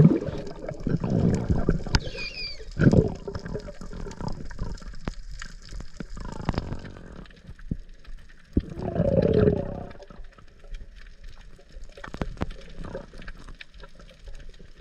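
Muffled underwater sound picked up through a camera housing: water noise with a few louder low, gurgling surges, about a second, three seconds and nine seconds in.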